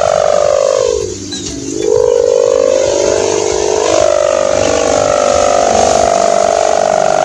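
Sendaren kite hummer droning in the wind with a raspy, snoring buzz. Its pitch sags sharply about a second in, then climbs back and holds steady.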